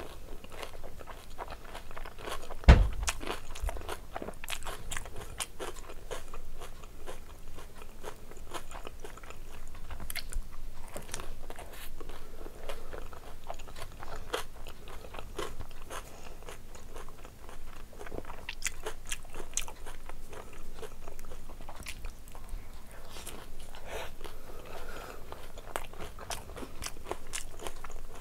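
Close-up chewing and crunching of crisp dahi puri shells topped with yogurt, a steady run of small crunches and crackles. A single loud low thump about three seconds in.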